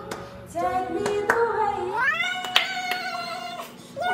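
A woman singing a cappella: a held note that slides up to a higher held note about two seconds in, with a few sharp clicks.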